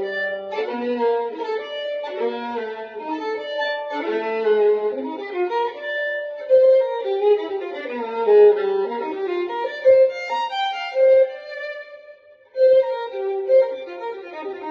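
Solo violin played with the bow in a jazz ballad arrangement, several notes often sounding together as bowed chords. The playing breaks off briefly about twelve seconds in, then resumes.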